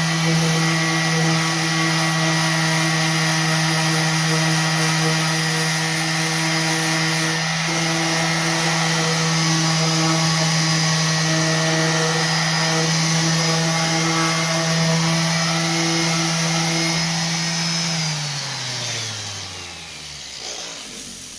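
Electric orbital sander running at a steady hum, then switched off about eighteen seconds in, its pitch falling as it winds down to a stop.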